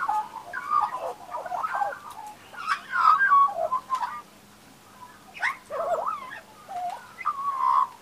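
Australian magpies warbling: a string of short phrases of gliding, warbled calls, with water splashing about halfway through as one magpie bathes in a shallow tub.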